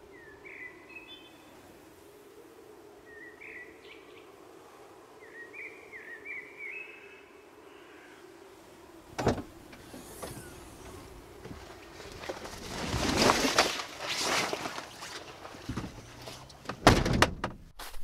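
A few short bird chirps over a steady low hum, then a single sharp knock about halfway through, a swell of rushing noise, and footsteps crunching in snow near the end.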